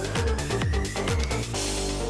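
Electronic dance music with a kick drum about twice a second under a steadily rising sweep; about one and a half seconds in, the beat drops out and a sustained chord with a wash of noise takes over.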